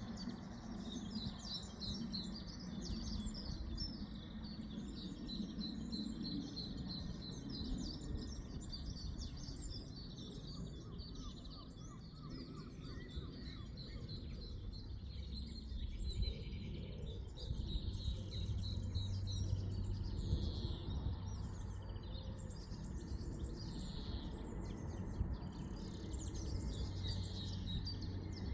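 Small birds chirping and singing continuously over a low background rumble; a steady low hum comes in about halfway through.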